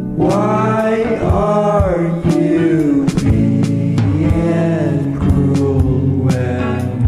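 A song with a singing voice that glides in long held phrases over a steady accompaniment with a regular beat.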